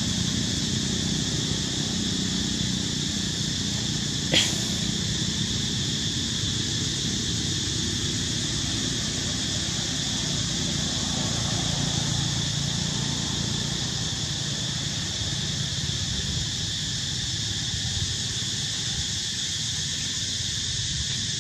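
Steady high buzzing of an insect chorus over a low murmur, with one short, sharp high-pitched sound about four seconds in.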